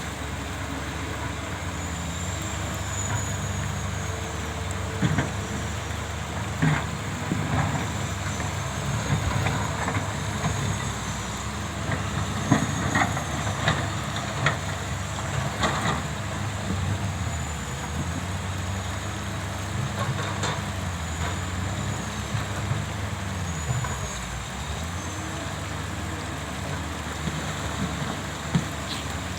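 Heavy excavator diesel engines running steadily, with scattered knocks and clanks of rock and steel.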